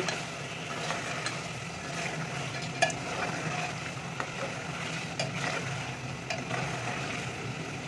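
Metal spoon stirring chicken karahi gravy in an aluminium pot, with a few sharp clinks of the spoon against the pot, over the gravy simmering and a steady low hum.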